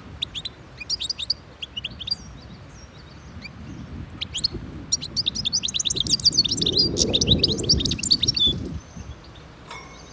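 European goldfinch singing: scattered twittering notes at first, then a dense, fast twittering run from about five seconds in that lasts some three seconds and is the loudest part.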